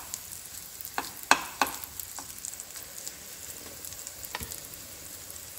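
Prawn omelettes sizzling steadily in hot oil in a nonstick pan, with a few sharp taps of a steel spoon against the pan at about a second in and once more later.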